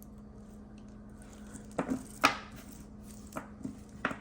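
Metal beads and metal spacers of a beaded necklace clicking against each other as it is handled: a handful of short sharp clicks starting a little under two seconds in, the loudest just after two seconds.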